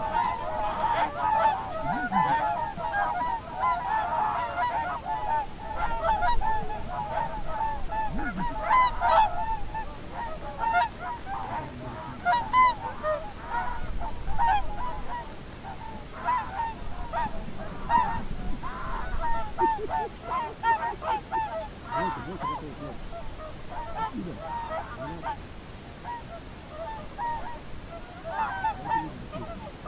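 Greylag geese honking, many calls overlapping, thick over the first ten seconds or so and thinning out after.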